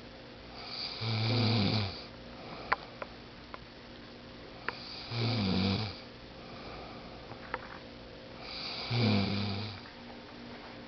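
A woman snoring in her sleep: three snores about four seconds apart, each a low buzz with a breathy hiss that swells over a second or so.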